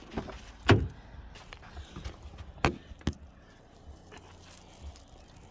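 Snow being swept off a car window by a mittened hand: a few scattered knocks and soft scrapes, the loudest about three-quarters of a second in.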